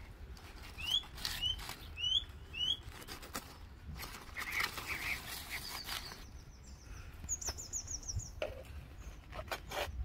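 Small birds calling: four short rising chirps in the first three seconds, then a quick high trill of about ten notes around seven seconds in. Beneath them run a steady low rumble and a few faint clicks.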